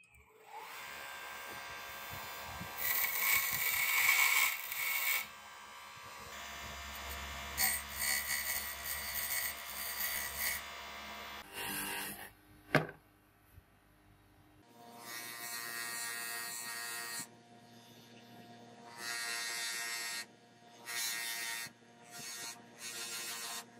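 DeWalt bench grinder running with a steady motor hum while a metal watch case part is pressed against the spinning wheel, giving repeated long bursts of grinding and polishing hiss. One sharp click comes about 13 seconds in, during a quieter spell.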